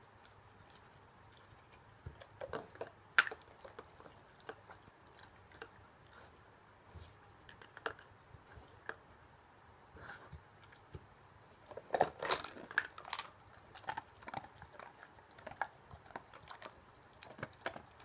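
Newfoundland dog working a plastic treat puzzle: scattered clacks and knocks of the plastic cups and tray, with crunching as it chews the treats. A sharp knock comes about three seconds in, and a busy run of clatter about twelve seconds in.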